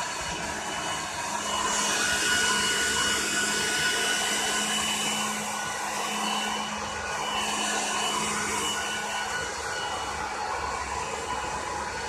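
Electric hair dryer blowing steadily, a rush of air over a motor hum and a thin whine, the hiss swelling a couple of times as it is moved around.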